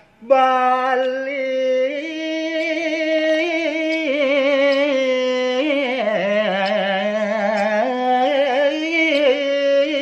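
A man singing a Balinese gaguritan verse in pupuh (tembang) style, drawing the word "Bali" out into a long melismatic line of held, wavering notes that slide from pitch to pitch. The voice comes in after a brief break at the very start.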